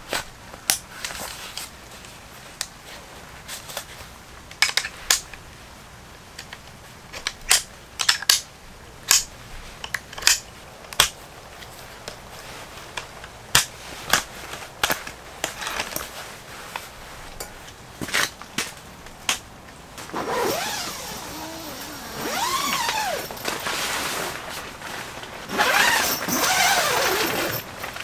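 Folding tripod camp stool being assembled by hand: its metal legs click and knock in a string of sharp, separate taps. Near the end come two longer stretches of scraping and rustling as the stool and its fabric seat are handled.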